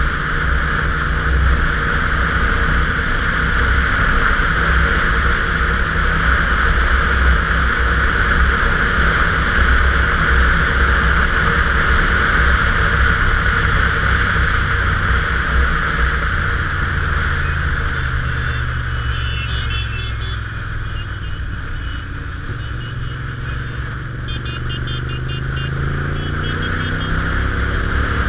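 Motorcycle engine running at a steady road speed under loud wind rush on a helmet-mounted camera. The engine note drops a little about two-thirds of the way through, then climbs again near the end.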